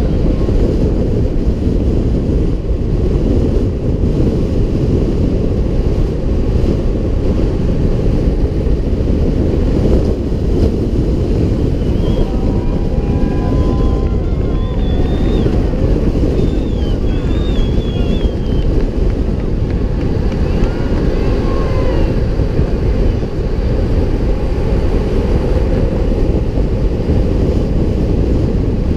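Wind rushing over the microphone of a downhill skateboarder racing at speed, mixed with the rumble of longboard wheels on asphalt. Faint shouts from spectators come through in the middle.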